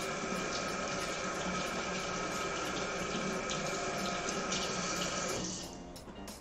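Kitchen faucet running steadily into a stainless steel sink while hands are washed under the stream; the tap shuts off about five and a half seconds in.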